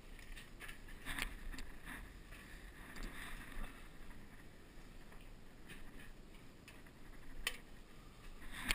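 Footsteps and scuffing over a rough stone and rubble floor: irregular crunches, with a sharp knock about seven and a half seconds in and another at the end.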